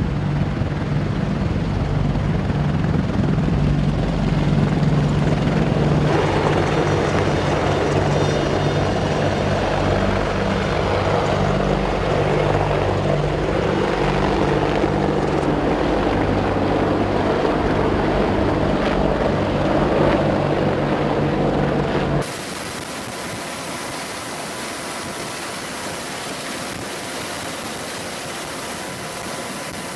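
AH-64 Apache helicopters running, the low beat of their rotors under the steady rush of their twin turboshaft engines, with the rushing growing louder about six seconds in. About three-quarters of the way through it cuts off abruptly to a quieter, steady engine hum.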